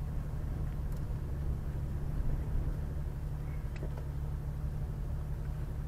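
Off-road vehicle's engine idling with a steady low hum, with a couple of faint clicks.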